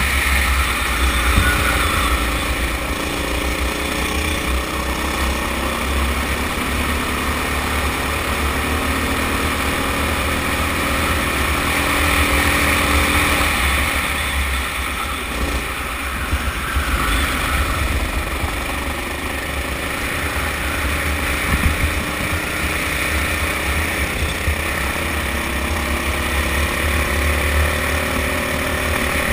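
Sodikart go-kart's engine running at racing speed, its pitch rising and falling as it accelerates out of corners and backs off into them, with a heavy low rumble of wind on the onboard microphone.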